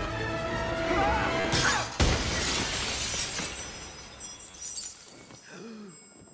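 Glass shatters with a sudden crash about two seconds in, broken shards tinkling as the sound fades away, over film score music.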